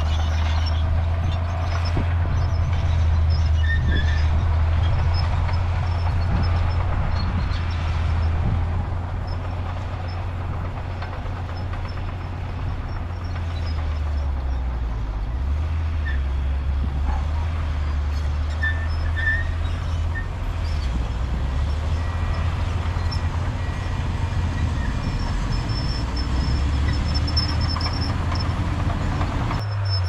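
Diesel engine of heavy earthmoving machinery running steadily with a deep low rumble, easing slightly in level partway through and picking up again.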